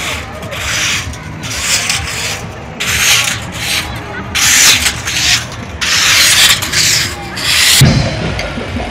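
Brooms swept in strokes across asphalt, a scratchy scrape about once a second. Near the end the sweeping stops and the low rumble of a tractor engine comes in.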